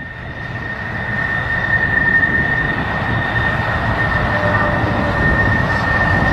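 Eurofighter Typhoon jet fighter's engines on a fast run down the runway: a steady rush with a high, constant whine, building in loudness over the first couple of seconds and then holding steady.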